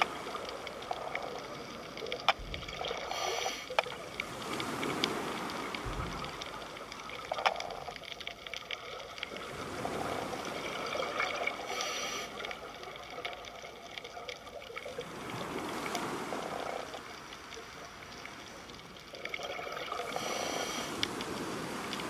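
Sea water washing and trickling, swelling and easing every few seconds, with scattered small clicks and pops.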